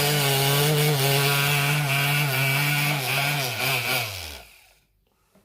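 Moulinex blender motor running at speed with a steady high whine. About three and a half seconds in it winds down, falling in pitch, and it stops a second later. While it runs, its vibration keeps the safety switch from cutting out.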